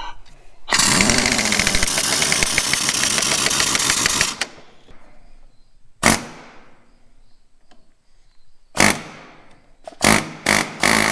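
Impact wrench hammering in one long burst of about three and a half seconds, then several short bursts, snugging up the bolts that mount a truck's steering box.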